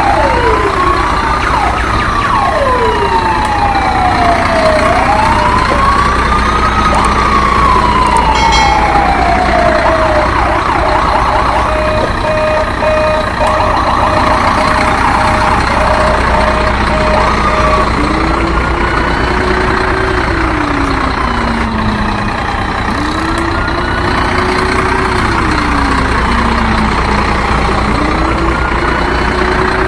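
Several siren wails overlapping, each slowly rising and falling in pitch, over a steady low hum. In the middle comes a run of steady evenly spaced beeps, and in the latter half a lower-pitched siren joins, rising and falling about every four seconds.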